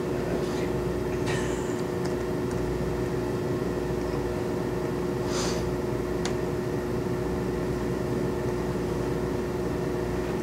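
Steady room hum: a low drone with a constant pitched tone running under it, with a couple of faint soft hisses and a single light click about six seconds in.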